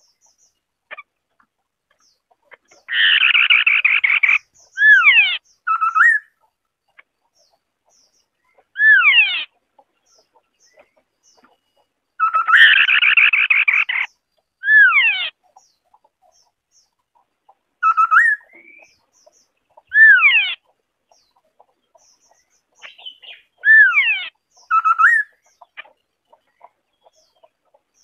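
White-browed scimitar-babbler singing in repeated phrases with pauses between them: sharply falling whistled notes and short rising notes. A harsher, denser chattering passage of about a second and a half comes twice, about 3 s in and about 12 s in.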